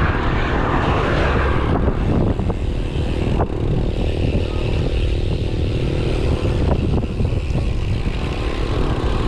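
Loud, steady rumble of wind buffeting the microphone, with road noise, on a moving bicycle.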